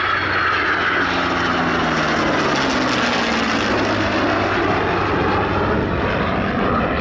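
Heritage-flight formation of a P-51 Mustang with F-22 and F-16 jets flying past: loud, steady engine noise whose pitch drops over the first three seconds as the aircraft go by.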